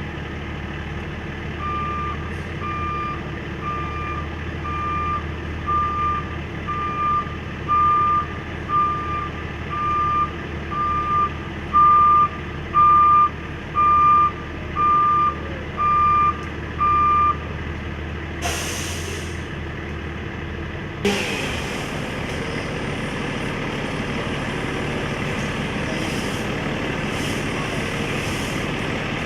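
Heavy truck running at idle while its reversing alarm beeps about once a second, sixteen times. A short hiss of air follows, then the engine gets louder.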